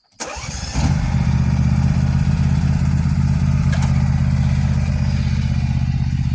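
John Deere S220 lawn tractor engine starting, catching about a second in and then running steadily.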